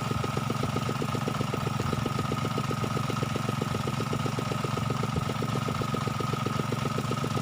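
A small engine running steadily at idle, with a rapid even beat of about ten pulses a second and a steady high tone over it.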